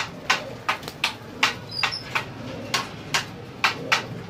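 A quick series of sharp knocks or claps, about three a second and slightly uneven, over a faint steady hum.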